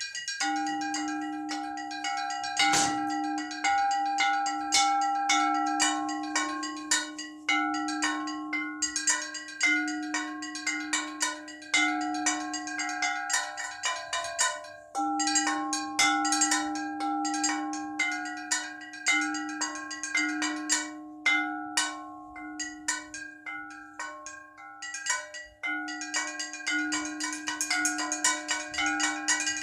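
A set of church bells rung together in the Russian kolokolny zvon manner. A lower bell rings again every second or two under quick, rhythmic strikes of several smaller, higher bells, with no pause between strokes.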